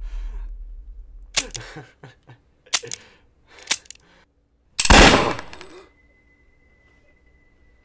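A revolver gunshot about five seconds in, the loudest sound by far, after a few shorter sharp sounds. It is followed by a steady high-pitched ringing tone.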